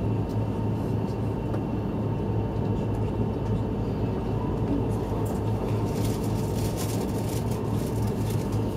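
Steady low hum inside a stationary E5-series Shinkansen car standing at the platform, with a faint high tone from the train's running onboard equipment. Light ticks and rustles come in over it near the end.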